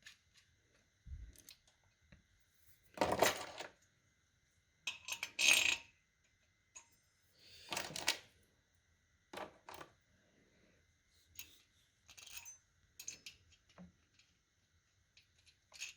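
Scattered metallic clinks and rattles of small steel valve-spring retainers and parts being handled and set onto the springs, a handful of separate clinks a second or two apart.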